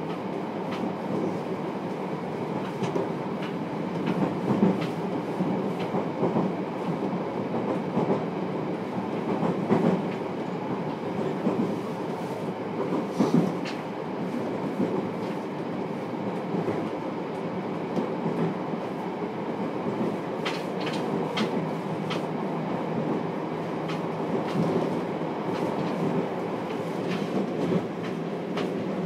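Interior running sound of a JR Kyushu 303 series electric train, heard inside motor car MoHa 303-1 while under way. It is a steady rumble with a few sharp clicks from the wheels about halfway through and again around two-thirds of the way in.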